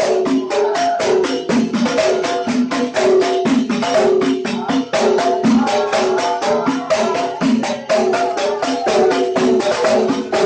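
Hadrah frame drums (rebana) beaten together in a fast, even rhythm, about five strikes a second, with men chanting sholawat over them into a microphone.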